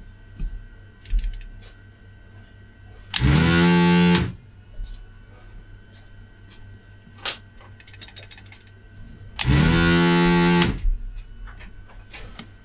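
Desoldering station's vacuum pump buzzing twice, about a second each and some six seconds apart, as the heated desoldering gun sucks molten solder out of joints on a power-supply circuit board.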